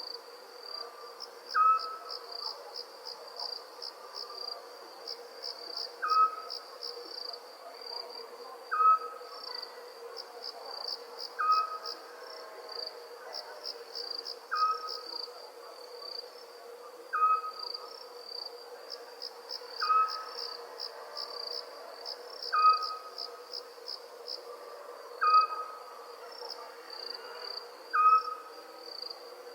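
Night chorus of crickets trilling steadily at a high pitch, swelling into pulsing bursts now and then. Over it, a single animal gives a short, falling call about every two and a half to three seconds, about eleven times in all, above a steady low hum.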